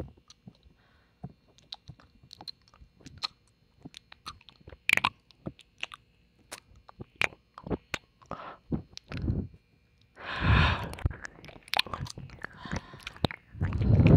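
Wet ASMR mouth sounds: licking, tongue clicks and lip smacks, as many sharp separate clicks. About ten seconds in there is a louder wet swell, and another builds near the end.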